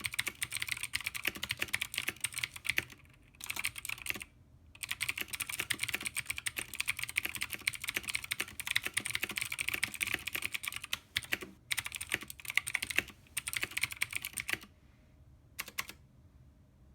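Fast continuous typing on a custom 60% mechanical keyboard, a dense run of key clicks broken by a few brief pauses. The typing stops about three-quarters of the way through, with one short burst of keystrokes after.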